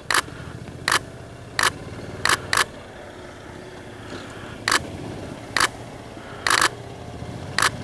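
Digital SLR camera shutter firing single shots, about nine sharp clicks at irregular intervals, as candid photos are taken.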